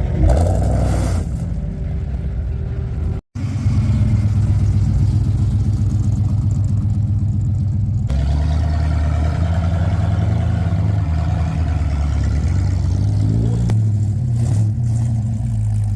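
Classic cars' V8 engines rumbling and revving in a run of short clips, with a fast low pulsing note. The sound drops out for an instant about three seconds in, and a different, deeper engine note takes over about eight seconds in.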